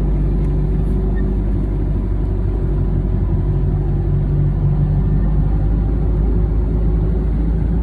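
A motorboat's engine running steadily, low-pitched and constant, with the boat under way.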